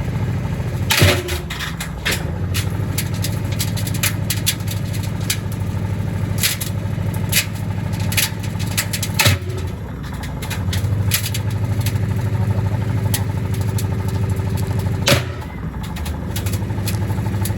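Gorenje washing machine running with heavy bricks in its drum: a steady motor hum under repeated knocking and clattering, with three heavy bangs, about a second in, near the middle and near the end.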